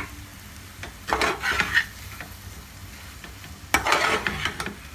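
A cooking utensil stirring and scraping egg bhurji around a hot pan in two short strokes, about a second in and near the end, with a light sizzle from the pan.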